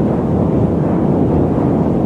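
Loud, steady static noise: a deep, even hiss with most of its weight in the low end and little treble, without change.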